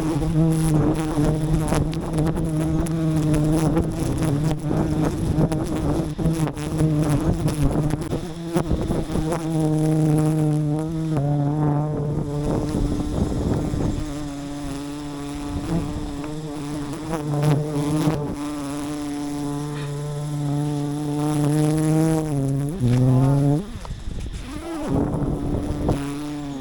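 Wild honeybees buzzing close to the microphone in a steady, loud drone. The pitch dips and climbs back near the end.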